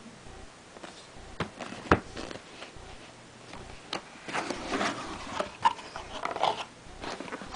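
Cardboard retail box of a wireless router being handled and opened. There are a few sharp taps and knocks, the loudest about two seconds in, then rustling and scraping of cardboard and packing foam from about four seconds in as the lid is lifted.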